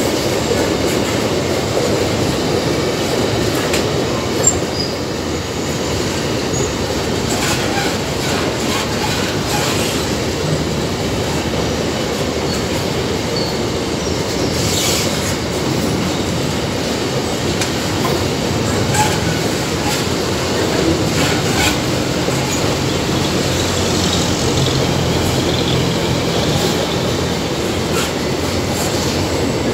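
Empty ore train's GDT gondola wagons rolling past: a steady rumble and rattle of steel wheels on the rails, with a few brief sharper metallic sounds from the wheels.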